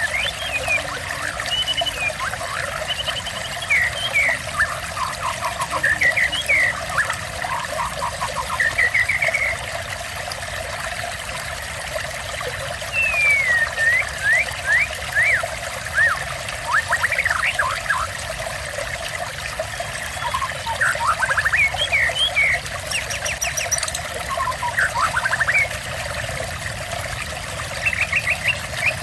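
Water trickling and splashing steadily while a songbird sings over it in short bursts of varied whistled phrases and quick trills, with pauses of a few seconds between phrases.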